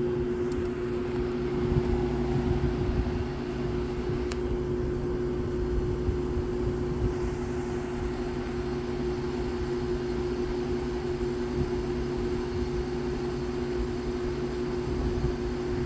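Frigidaire 5,000 BTU window air conditioner running on cool, its fan blowing with a steady hum. The owner says the unit's fan motor has a hum to it and is kind of noisy.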